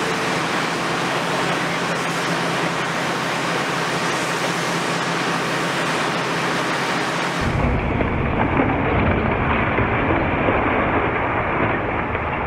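Demolition by a Cat 336F long-front excavator, its hydraulic concrete crusher breaking up a building's upper floors amid a steady rushing noise. About seven seconds in, the sound changes abruptly to a deeper, slightly louder rumble and the hiss drops away.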